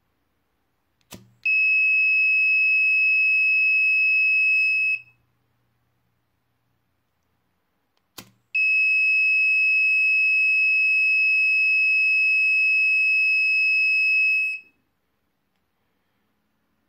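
Buzzer of an Arduino flame-sensor fire alarm sounding a steady high-pitched tone twice: about three and a half seconds, then about six seconds. Each tone follows a sharp click. It is the alarm signal given when the flame sensor detects fire.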